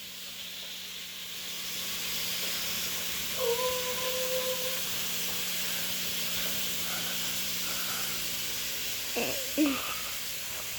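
Food sizzling in a hot frying pan, a steady hiss that swells about two seconds in and holds. A short, steady beep-like tone sounds about three and a half seconds in, and a brief voice-like sound comes near the end.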